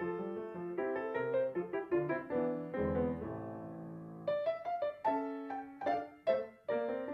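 Piano music: a quick run of notes, a chord held for about a second in the middle, then a series of sharp struck chords.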